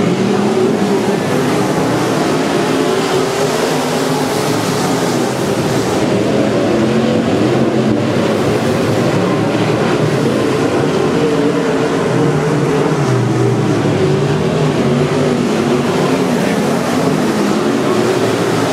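Dirt-track modified race cars' engines running at racing speed on the track, a loud, steady drone whose pitch rises and falls as the cars go around.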